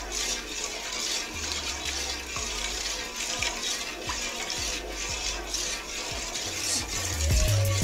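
Hot milk sloshing in a steel pot as a steel ladle stirs it and lemon juice trickles in from a plastic cup, with light clinks of the ladle against the pot. The lemon juice is splitting the milk into curds.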